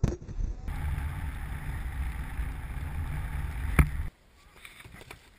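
Wind buffeting an action camera's microphone, a steady low rumble with a sharp click at the start and a sharp knock near the end, cutting off suddenly about a second before the end and leaving only faint sounds.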